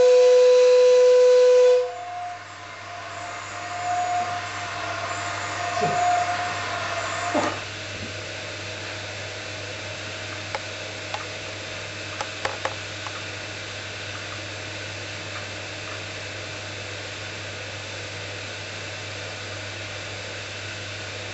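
A loud steady beep for about two seconds, then the steady hiss of a laser seam-welding station: gas flowing while the Nd:YAG laser seals the turning aluminium filter chamber. A constant low hum and a few small ticks sound under it.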